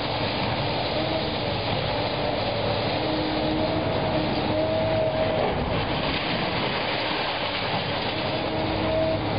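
Long-reach demolition excavator tearing into a concrete building: steady machine and crunching-debris noise, with high squeals that come and go several times.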